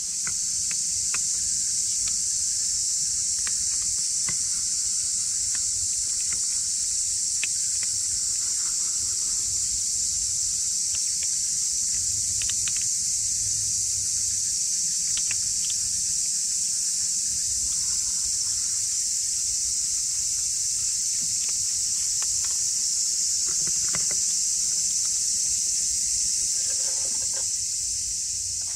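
Steady, high-pitched drone of a summer insect chorus, unbroken throughout, with scattered faint ticks over it.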